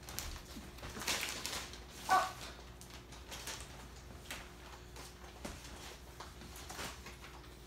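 Soft rustles and light knocks of wrapped gift boxes being handled and set down on a sofa, with a brief squeak about two seconds in.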